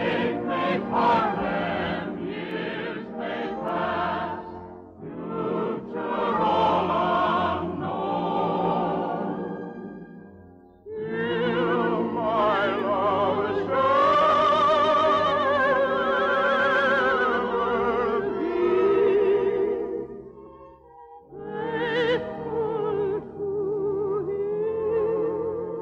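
Operatic singing with wide vibrato, holding long notes over an orchestra. The music drops away briefly about 21 seconds in, then picks up again.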